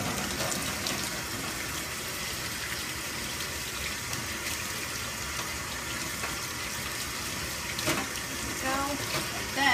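Kitchen faucet running steadily into a stainless steel sink while hands are washed under the stream.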